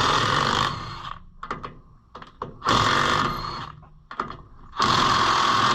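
Cordless impact wrench hammering on a truck lug nut in three bursts, the longest near the end, with metal clanks between them; the nut is not coming loose despite a fully charged battery.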